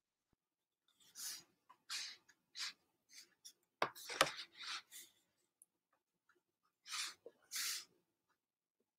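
Pen strokes scratching on sketchbook paper: short hissing strokes in three clusters, with a couple of sharper knocks around the middle.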